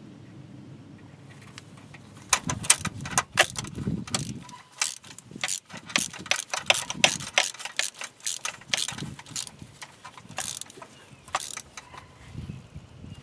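Metal hand tools clicking and clinking while the bolts on the thermostat housing of a 2.4 twin cam engine are worked in. A run of irregular sharp clicks starts about two seconds in.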